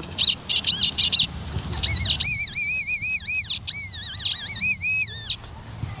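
A songbird singing: phrases of quick, arching whistled notes that rise and fall, the fullest stretch from about two seconds in until a little past five.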